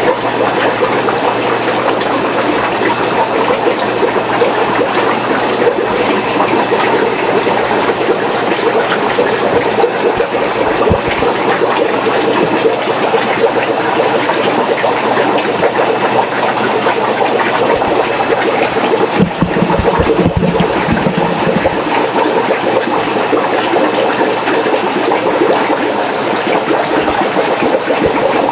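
Steady bubbling and running water from a row of aquarium tanks driven by air-powered sponge filters, over a steady hum, with a few low knocks around two-thirds of the way through.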